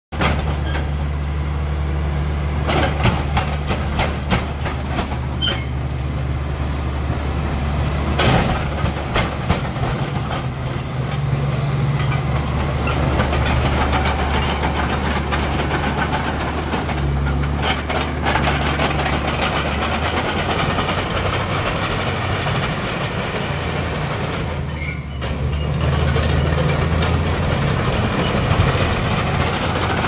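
Shantui SD16TL crawler bulldozer's diesel engine running steadily, with scattered metallic clanks and knocks from the machine. The engine note shifts a few times and grows louder near the end.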